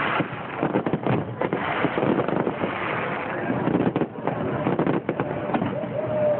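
Fireworks display: aerial shells bursting in many bangs in quick succession.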